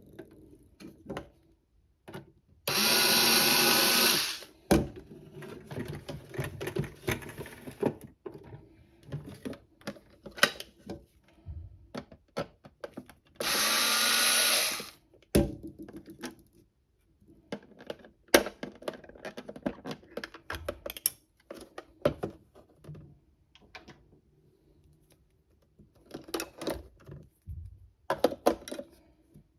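Small motor of a toy washing machine whirring in two bursts of about a second and a half each, one a few seconds in and one about halfway through, its whine rising as the drum spins up. Light clicks and taps come between the bursts.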